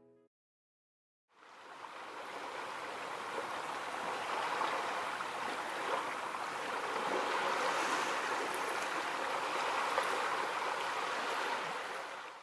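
A steady rushing hiss like running water. It fades in about a second in, after a moment of dead silence, and stops abruptly at the end.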